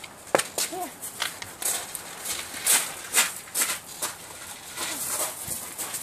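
Footsteps and paws scuffing and crunching on a gravelly dirt floor, in an irregular patter, with a knock about half a second in as the phone is set down.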